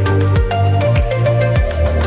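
Electronic background music with a steady drum beat, heavy bass and held synth notes.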